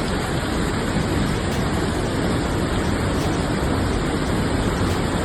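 Steady rushing noise of heavy rain and floodwater on a flooded street.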